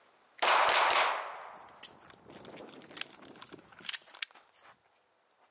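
A 9mm FMK Elite Pro pistol fires a shot about half a second in, and the report fades away over the next second or so. Several light, sharp clicks follow as the gun is handled.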